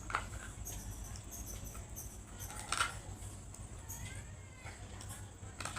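Crunchy food being bitten, with two sharp crunches, one just after the start and one nearly three seconds in, and quieter crackles between, over a low steady hum.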